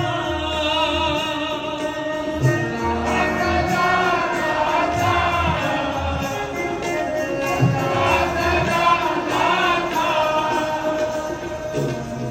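Sikh kirtan: devotional hymn singing with musical accompaniment, held notes under a wavering voice and soft low beats.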